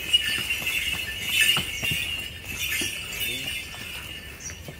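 Jingling and clinking from the water-carrying bullock as it climbs stone temple steps, with scattered clops of its hooves on the stone.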